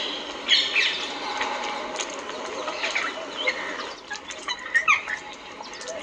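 Small birds chirping and calling in scattered short notes, some sliding down in pitch, with a short burst of chatter about half a second in and a cluster of sharp calls near the end.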